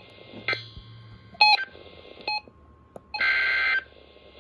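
Emergency Alert System end-of-message data tones: several short, sharp electronic beeps, then a longer burst of steady data tone lasting about half a second near the end, marking the end of the alert.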